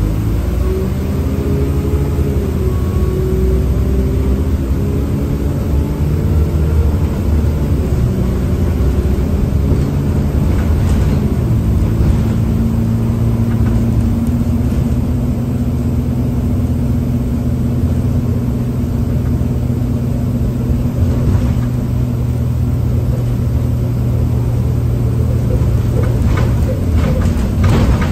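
Single-deck bus's diesel engine and road noise heard from inside the saloon while driving. The engine note rises over the first few seconds as the bus picks up speed, then holds steady at cruising speed, with a few rattles near the end.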